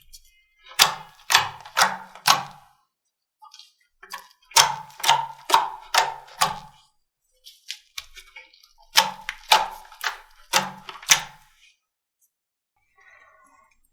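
Slime being pressed and squished by hand, giving sharp wet pops and clicks with a soft thud under each. They come in three quick runs of four or five pops, a few seconds apart.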